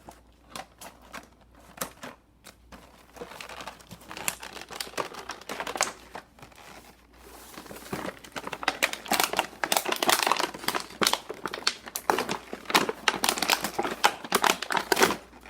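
Toy packaging being handled and crumpled: scattered crackles and snaps at first, then a loud, dense crinkling from about halfway through.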